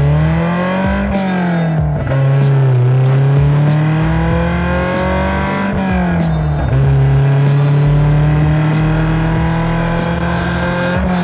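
Lotus Elise's Toyota four-cylinder engine pulling on the move. The revs climb in the first second, fall back, climb slowly again, drop about halfway through as if through a gear change, then hold steady at a cruise.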